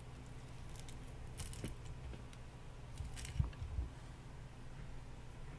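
A few short scrapes and clicks of something being handled, and a low thump about three and a half seconds in, over a steady low hum.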